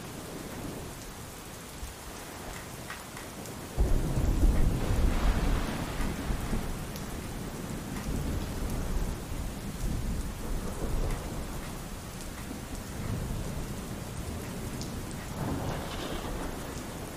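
Steady pouring rain with a sudden low rumble of thunder about four seconds in, the loudest sound here, fading slowly over several seconds. Softer rumbles of thunder follow later.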